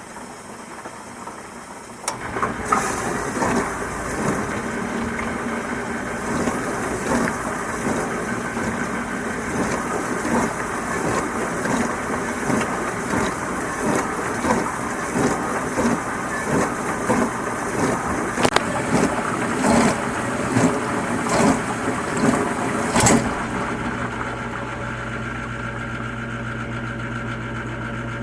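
Apartment dishwasher running. About two seconds in, a louder, irregular churning with many sharp splashes and clicks starts suddenly. Near the end this stops, leaving a steady low motor hum.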